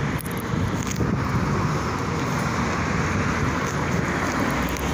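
Steady outdoor noise: wind buffeting the microphone over the hum of street traffic.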